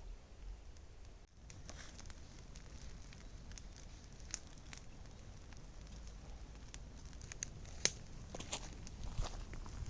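Wood fire crackling, with scattered sharp snaps and pops that come more often in the second half.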